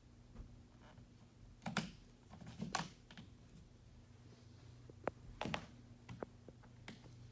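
A few scattered light clicks and knocks, irregular and a second or so apart, over a faint steady low hum.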